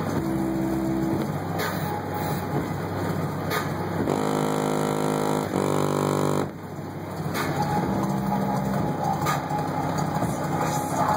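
Hip-hop beat played loud through Sundown Audio SA-8 v2 subwoofers in a car audio system, picked up by a phone outside the car. Heavy bass notes and held synth notes change every second or two, with sharp drum hits.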